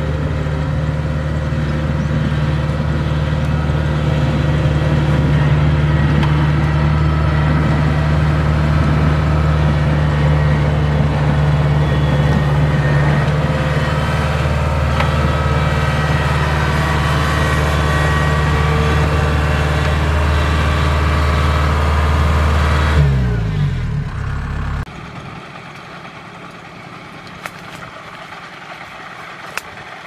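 Kubota crawler combine harvester's diesel engine running steadily, with a strong low hum. About 23 seconds in its note falls away and stops, leaving a much quieter steady background with a couple of faint clicks.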